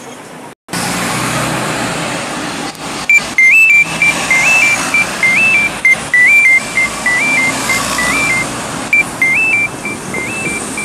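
Double-decker buses passing close by on a busy city street, with steady traffic noise, and a repeating two-note electronic beep that starts about three seconds in.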